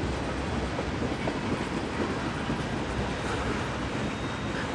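Train passing: a steady rumble of railcar wheels on the track.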